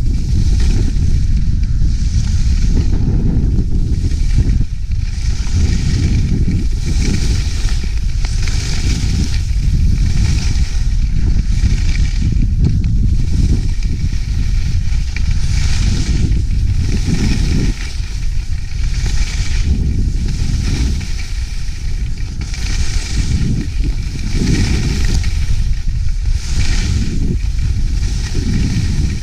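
Skis carving turns on snow, their edges hissing and scraping in a rhythm of about one turn a second, over a heavy wind rumble on the camera's microphone.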